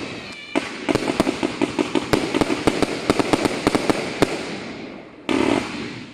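Gemstone Destroyer 80-shot firework barrage firing: a rapid run of sharp crackling bangs from bursting shells for about four seconds, thinning out and fading, then a short rushing burst about five seconds in.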